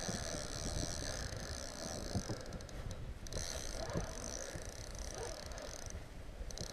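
Spinning fishing reel being cranked, a steady light whir that pauses briefly about three seconds in and again near the end.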